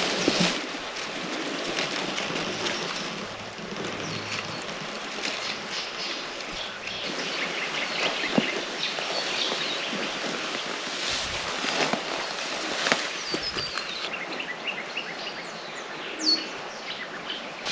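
Bush ambience: many small birds chirping and calling over a steady background hiss, with a few sharp clicks and one clear falling whistle near the end.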